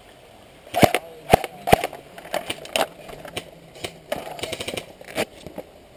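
Airsoft rifles firing single shots: three loud sharp cracks about half a second apart around a second in, then fainter scattered shots and a quick run of them near the end.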